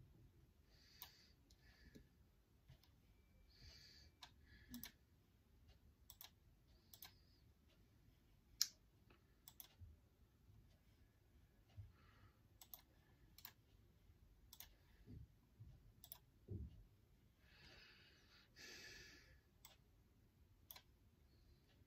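Faint, irregular clicks of a laptop's keys and trackpad, with a few soft rustles.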